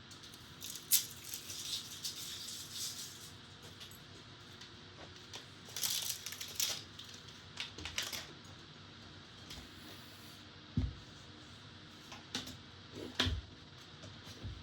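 Hands handling PC fans and case parts: scattered small clicks and taps, short crackly rustles of plastic near the start and about six seconds in, and two light knocks in the second half.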